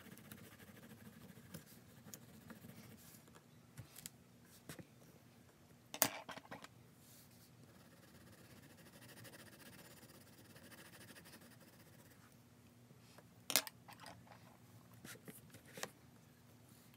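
Faint handling sounds of colored pencils on paper, mostly quiet hiss, with a few sharp clicks or taps: the loudest about six seconds in, another about thirteen and a half seconds in, and a few smaller ones just after.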